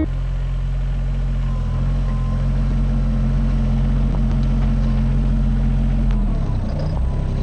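Mini excavator's diesel engine running steadily, with a change in its note about six seconds in.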